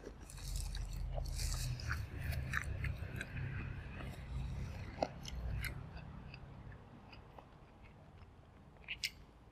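A person chewing food close to the microphone, with many small clicks and crackles, dying away after about six seconds; a couple of sharp clicks near the end.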